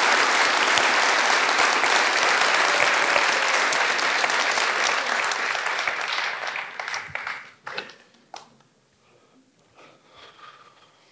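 Audience applauding steadily, then dying away about seven to eight seconds in with a few last scattered claps.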